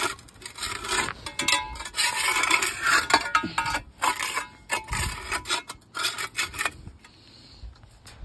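Small metal hand shovel scraping and scooping over a concrete floor strewn with wood shavings, in many short strokes that stop about seven seconds in. A single thump near the end.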